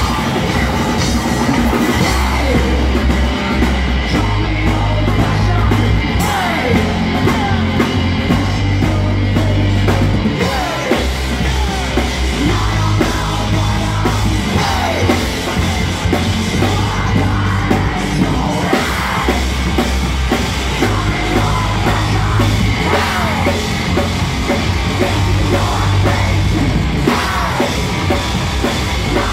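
Live heavy metal band playing loudly: distorted electric guitar, heavy sustained bass notes changing every second or two, a pounding drum kit and yelled vocals.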